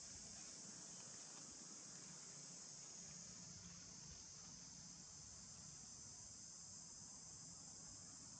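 Faint, steady, high-pitched chorus of insects droning without a break.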